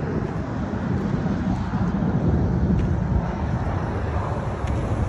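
Wind buffeting the phone's microphone: an uneven low rumble that swells and drops.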